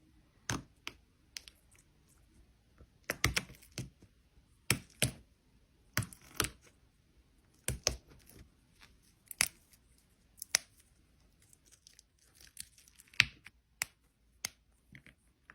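Plastic slime packaging being handled and opened by hand: irregular sharp clicks, crinkles and tearing, about a dozen short sounds, some in quick pairs.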